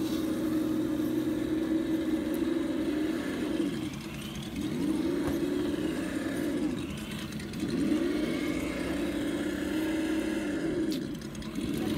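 RC scale crawler truck's motor and gears whining as it climbs a steep slope, the pitch dipping and rising again about three times as the throttle is eased and reapplied.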